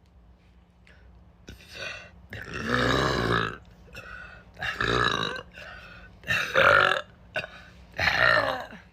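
A woman belching loudly again and again: a small burp, then four long, loud belches in quick succession.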